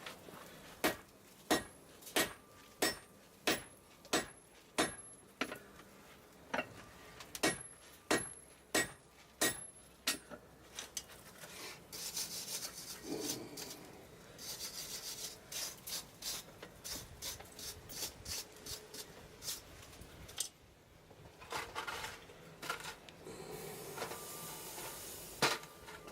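Hand hammer striking a hot steel billet on an anvil, about a dozen even blows with a light ring, setting a forge weld. After that comes irregular rasping and scraping of metal, with a few softer knocks.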